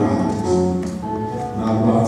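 Live Ethiopian Orthodox mezmur (hymn) music with long held notes, sung into a microphone.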